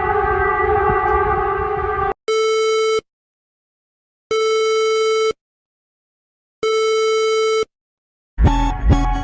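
Emergency Alert System alarm tones: a steady, harsh multi-tone alert that cuts off about two seconds in, then three identical electronic beeps, each about a second long, separated by silence. Music starts near the end.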